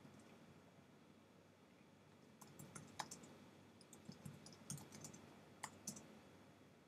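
Computer keyboard being typed on: a quiet stretch, then an uneven run of light key clicks from about two and a half seconds in.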